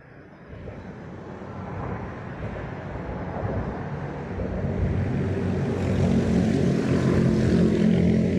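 An engine drawing near, growing steadily louder over several seconds: a rushing noise with a low, steady engine hum that is strongest near the end.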